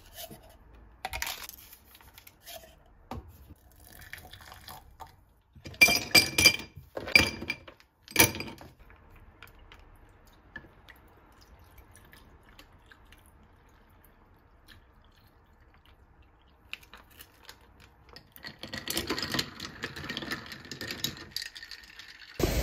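Ice cubes dropped into a glass tumbler, clinking sharply several times over about two seconds, with lighter knocks of handling before. Near the end, a few seconds of pouring liquid.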